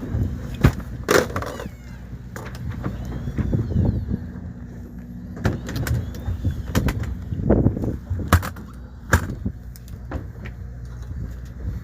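Steady low hum of a fishing boat's machinery, with scattered knocks and clatters throughout.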